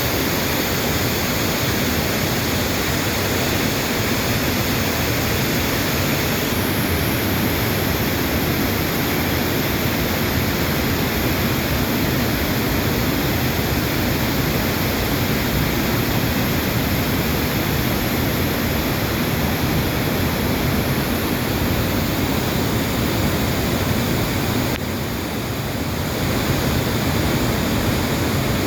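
Waterfall plunging about 100 feet into a pool: a loud, steady rushing of falling water that dips briefly near the end.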